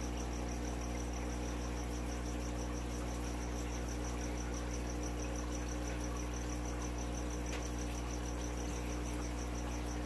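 Steady low electrical hum of aquarium pumps and sump equipment, with a high, evenly pulsing tone above it.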